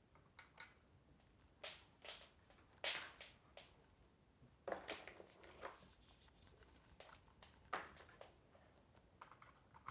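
Quiet, scattered clicks and rustles of a power cable being handled and routed along a light stand, with a few louder knocks about three, five and eight seconds in.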